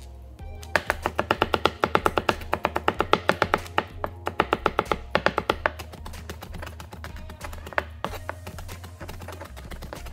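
Chef's knife mincing garlic on a cutting board: a fast, even run of chopping strikes in the first half, then only a few scattered strikes. Background music with guitar plays underneath.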